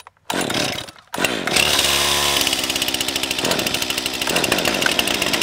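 Pro-grade two-stroke chainsaws, a Stihl MS 261 C-M and a Husqvarna 550 XP Mark II, start up loudly about a second in. They climb to full throttle and run flat out as the chains bite into logs, with a fast, even pulse to the engine note.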